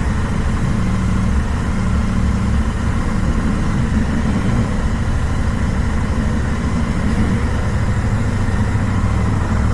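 Royal Enfield 650 cc parallel-twin motorcycle engine idling steadily.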